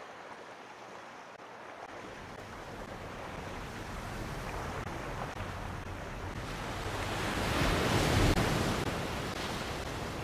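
Wind buffeting the microphone and water rushing past the hull of a small boat under way, growing louder to a peak about eight seconds in.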